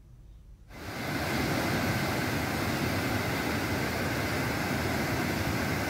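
Floodwater rushing through the open spillway gates of a river barrage: a steady, even rush of falling water that comes in just under a second in.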